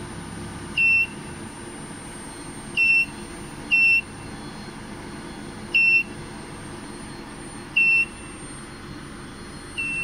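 Short high-pitched electronic beeps from an induction heater's touch-screen control panel, six of them one to two seconds apart, over a steady machine hum and a thin high whine.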